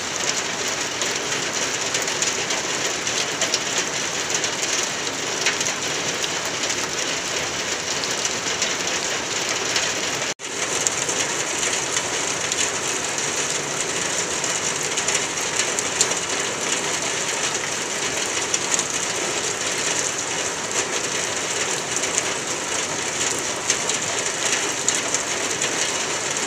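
Steady rain falling: an even hiss with scattered drop ticks, broken by a momentary gap about ten seconds in.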